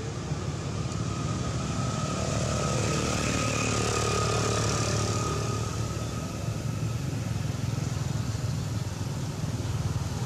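A motor vehicle engine passing by, swelling to its loudest about four seconds in and then fading, over a steady low rumble.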